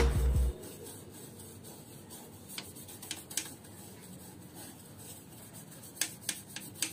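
Toothbrush bristles scrubbing dust off an exhaust fan's metal housing: a soft, steady rubbing with a few sharp clicks, more of them near the end. Background music cuts off about half a second in.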